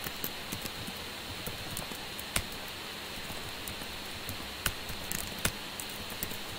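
Computer keyboard typing: scattered, irregular keystroke clicks, a few louder than the rest, over a steady hiss.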